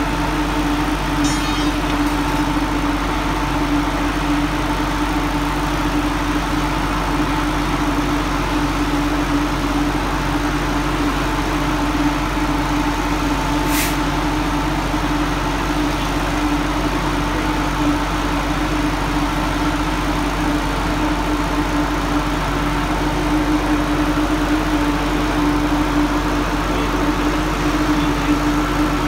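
An engine running steadily at one constant speed, a continuous even hum. A single sharp click about fourteen seconds in.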